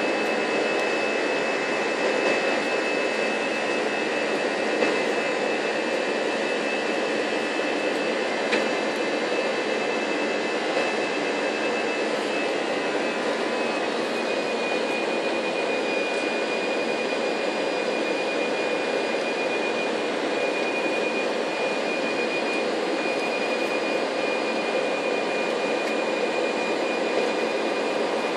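Cabin noise of an Airbus A318 jet airliner in flight: a steady rush of engine and airflow noise with a thin, steady high whine running through it.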